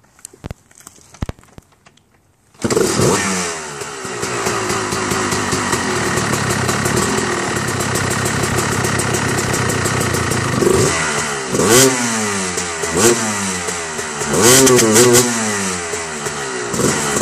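Dirt bike being kick-started: a few knocks from the kick-starter, then the engine fires and catches about two and a half seconds in. It idles, then is revved in short throttle blips that rise and fall in pitch, several in quick succession near the end.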